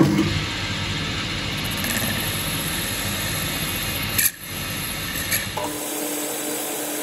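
Boxford BUD lathe running as a parting tool cuts into a spinning brass workpiece to part it off. A brief break about four seconds in, then the lathe runs on with a steadier hum and a low steady tone as the end is refaced.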